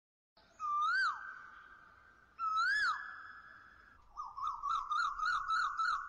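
Bird-like whistled calls as an intro sound effect: two calls that each rise and then fall, ringing on after each, then a quick run of short rising chirps, about four a second.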